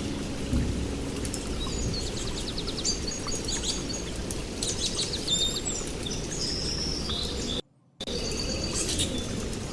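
Songbirds chirping and trilling, several short overlapping calls, over a steady low background noise. The sound drops out completely for a moment about three-quarters of the way through.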